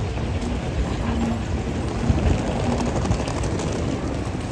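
Busy city street ambience: a steady wash of traffic running, with scattered small clicks and knocks.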